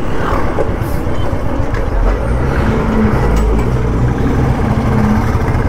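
Royal Enfield Bullet 350's single-cylinder engine running at low speed in slow traffic, with a city bus's engine close alongside; a steady, low-pitched engine sound.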